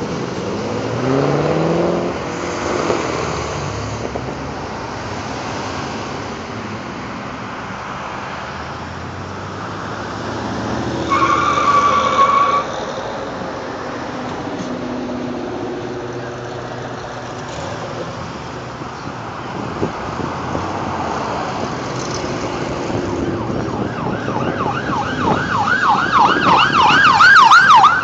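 Road traffic heard from inside a car creeping along in slow traffic, with an engine revving up near the start and a steady horn-like tone for a second or so near the middle. Near the end an emergency-vehicle siren starts yelping rapidly and grows loudest.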